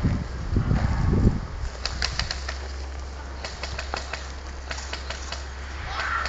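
Airsoft guns firing several short bursts of rapid clicks, about every second or so. Heavy low rumble over the microphone at the start.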